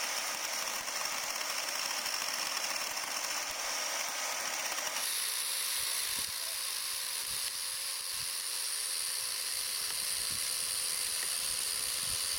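Electric chainsaw motor running steadily with a high whine; the sound changes abruptly about five seconds in.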